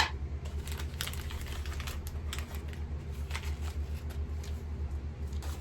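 Light, irregular clicks and taps of small plastic miniature pieces and their packaging being handled, over a steady low hum.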